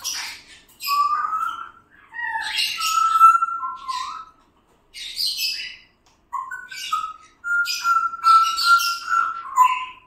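Pet parrot calling: a string of short raspy squawks and chirps, mixed with held whistled notes, one around three seconds in and a longer one from about seven and a half seconds that drops in pitch at the end.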